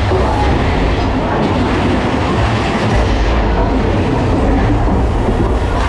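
Big Thunder Mountain Railroad mine-train roller coaster rolling along its track at speed, heard from on board: a loud, steady rumble with clattering and rattling from the wheels and cars.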